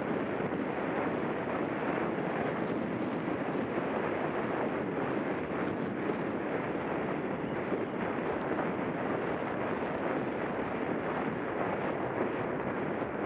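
Wind rushing steadily over a helmet camera's microphone while the horse is ridden at speed across open ground.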